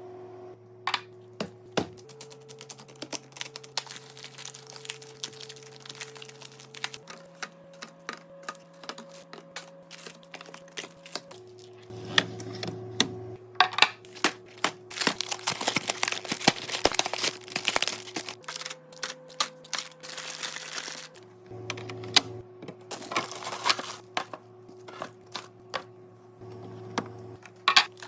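Many quick clicks, taps and crinkles of food containers and packaging being handled and set down while a fridge is restocked, coming thick and fast at times. Under them runs quiet background music with held chords that change every few seconds.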